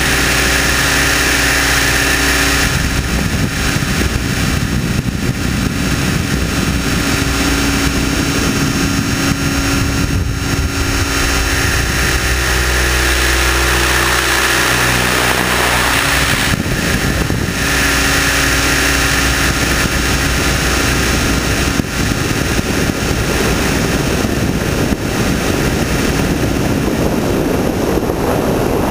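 Align T-Rex 600ESP radio-controlled helicopter running, heard from a camera mounted on its nose: a loud, steady whine of the motor and main rotor as it lifts off and climbs. The pitch of the whine shifts a few times, most clearly about a third and half way through.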